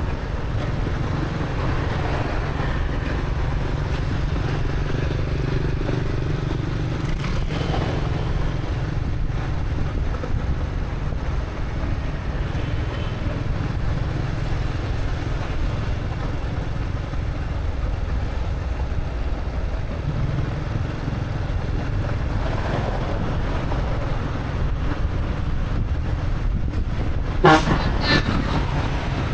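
Steady rumble of a motorbike ride in street traffic, engine and road noise together. A short vehicle horn toot sounds near the end.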